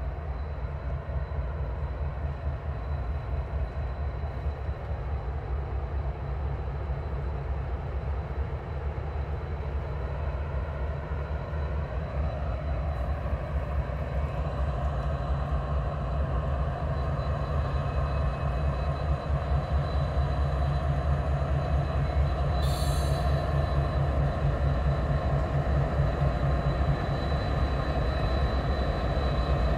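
Norfolk Southern freight train's diesel locomotives approaching, their engines running with a steady low rumble that grows louder as the lead units draw close. A brief high-pitched squeal comes about 23 seconds in.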